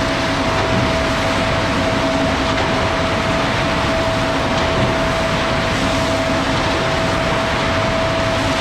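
Concrete mixer truck running steadily while its drum turns to mix the load: a steady whine over an even rushing noise.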